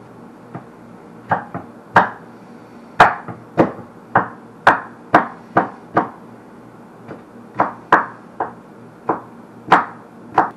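Knife chopping garlic, pepper and onion on a cutting board: a string of sharp, irregular knocks, about two a second.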